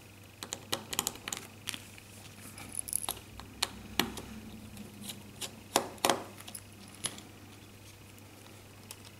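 Irregular small clicks and taps of a precision screwdriver, a tiny screw and fingers on a smartphone's plastic back frame during disassembly, with a couple of louder knocks about four and six seconds in.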